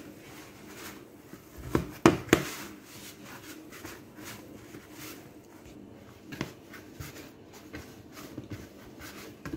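Chin chin dough being kneaded by hand in a bowl: repeated soft pressing and rubbing sounds, with a couple of sharper knocks about two seconds in.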